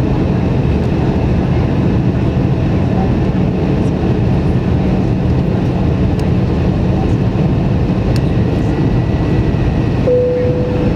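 Steady cabin noise of an Airbus A321 heard from a window seat: engine hum and rushing airflow with a low drone, as the jet descends on approach. A brief steady tone sounds near the end.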